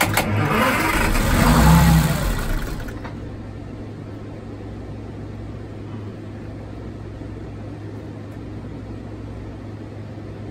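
Detroit Diesel 6-71 inline-six two-stroke diesel revved briefly, rising for about two seconds and dropping away within the next second, followed by a steady low hum.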